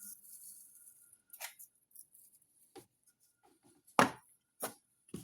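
A few short knocks and clicks of kitchen containers and utensils being handled and set down, the loudest about four seconds in.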